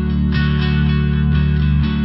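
Background music led by guitar, with the chords changing every second or so.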